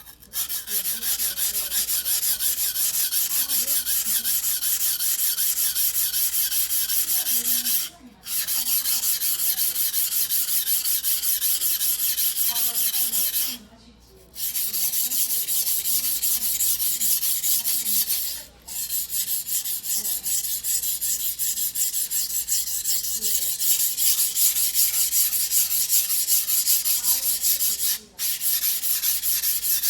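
Choyo yanagiba sashimi knife of White #2 steel being worked back and forth by hand on a whetstone: a steady, fast stroking scrape, broken by four short pauses.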